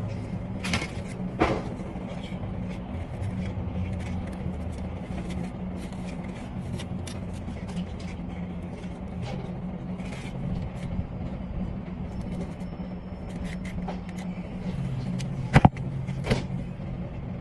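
A steady low engine hum, with scattered sharp taps and clicks over it; the loudest taps come about a second and a half in and twice near the end.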